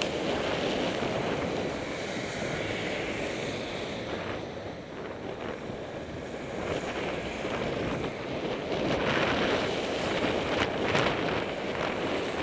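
Wind rushing over a bicycle-mounted action camera's microphone, with road noise underneath. It grows louder in the last few seconds as a car passes close alongside.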